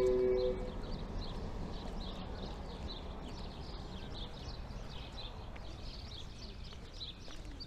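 Outdoor city ambience: small birds chirping over and over above a steady low hum.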